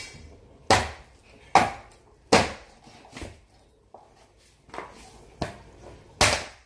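A heavy meat cleaver chopping a pork trotter on a plastic cutting board: about seven hard chops at uneven intervals, the loudest about a second in, at a second and a half, just after two seconds, and near the end. The trotter is hard and takes repeated blows to cut through.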